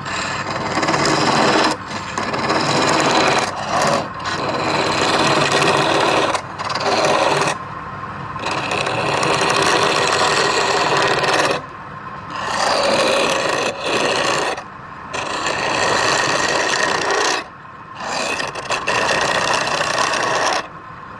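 A woodturning tool cutting against wood spinning on a lathe, in stretches of a few seconds broken by short pauses as the tool is lifted, over the lathe motor's steady hum.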